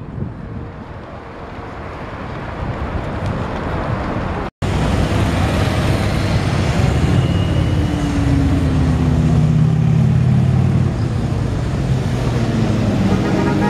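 Wind noise on the microphone, then, after an abrupt cut, a column of motorcycles riding past. Their engines run loud, and the engine note slides up and down as the bikes go by.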